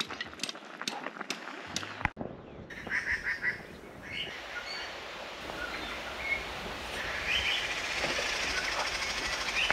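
Birds calling outdoors: short, high chirps and call notes here and there over a steady background hiss. For about the first two seconds, before that, a run of light clicks and taps.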